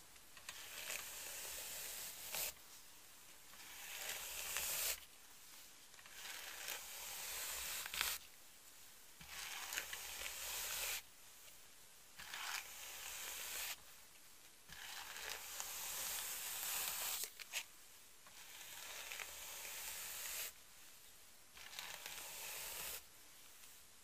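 A hairbrush drawn down through the long hair of a mannequin head in about eight slow strokes. Each is a dry, bristly hiss that swells through the stroke and stops sharply, one every two to three seconds.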